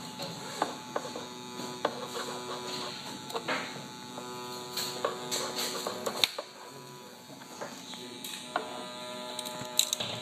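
A metal scraper scraping and clicking against a 3D printer's build plate as a printed plastic part is pried off, in irregular short strokes, over a steady machine hum.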